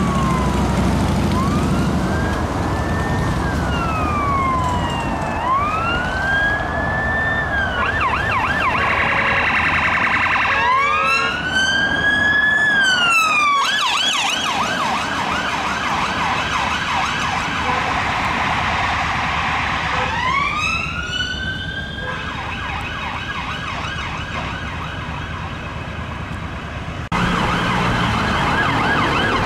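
Police car siren switching between a slow rising-and-falling wail and a fast warbling yelp, over road traffic. Near the end it cuts abruptly to another siren cycling fast.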